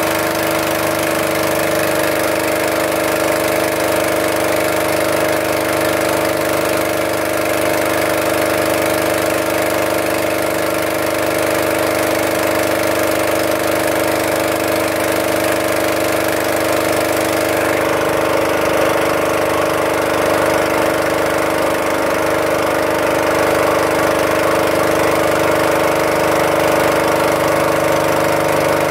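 Inboard motor of a small covered passenger boat running steadily under way, a constant even engine drone.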